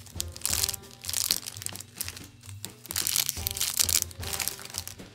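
Clear plastic packaging bags crinkling in several bursts as bagged squishy toys are handled, over background music.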